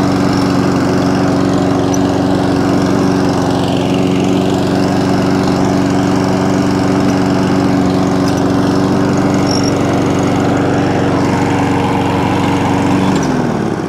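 Petrol walk-behind lawn mower engine running at a steady speed, its self-propelled drive engaged but not driving the wheels; the engine slows and shuts off near the end.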